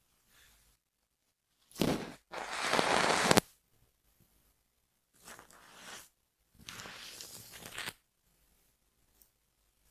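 Scratching and scraping on a scalp and hair during an anti-dandruff treatment: a short rasp, a longer louder one, then two quieter strokes some seconds later.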